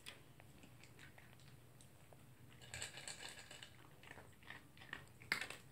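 Toy poodle eating dry kibble from a plastic slow-feeder bowl: faint crunching and chewing with small clicks, busiest about three seconds in. A sharp click near the end.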